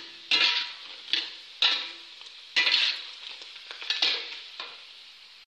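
Krupuk crackers deep-frying in hot oil in a wok. The sizzling flares up suddenly about five times and dies away between flares.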